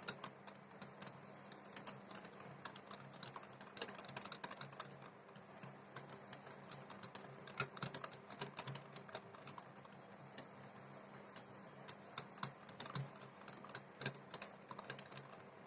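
A mixing utensil clicking and scraping against a bowl as semolina is stirred into a curd, sugar and oil batter: faint, quick, irregular clicks throughout.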